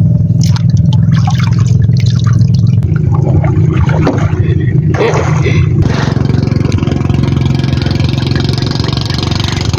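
An engine running steadily at an even speed, a loud low drone with a fine rapid pulse.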